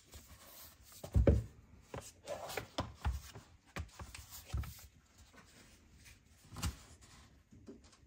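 Unboxing handling sounds: a few sharp knocks of objects set down or tapped, the loudest about a second in, with soft rustling and rubbing of packaging between them.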